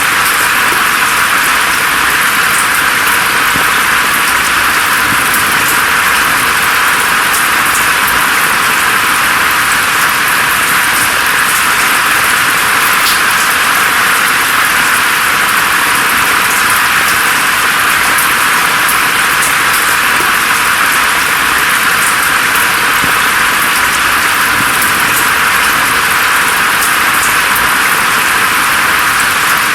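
Steady rain falling on forest foliage: an even, unchanging hiss with faint scattered drop ticks.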